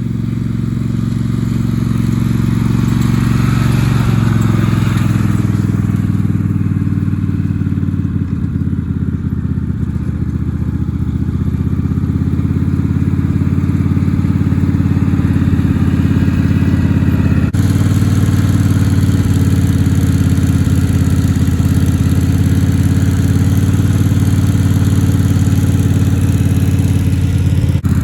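Straight-piped twin-cylinder engine of a Craftsman riding lawn mower running with its muffler removed, loud and steady, growing louder over the first few seconds.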